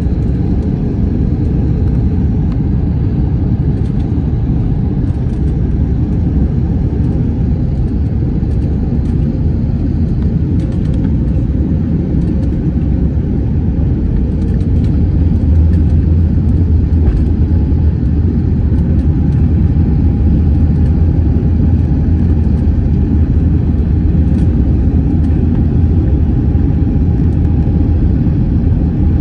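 Airbus A321 airliner's steady low rumble of engine and airflow noise, growing a little louder about halfway through.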